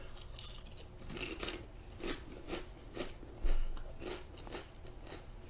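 A thin Lay's potato chip crunching as it is chewed with the mouth closed, about two crunches a second. A dull thump comes a little past halfway.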